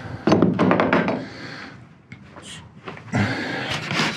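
Bandsaw parts and packing material being handled: rustling and scraping with sharp knocks, in two spells, one just after the start and another about three seconds in.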